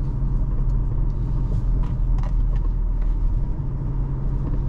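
Steady low rumble of a 2024 Toyota Hilux G pickup on the move, heard inside the cabin, with a few faint clicks of something loose rattling about two seconds in.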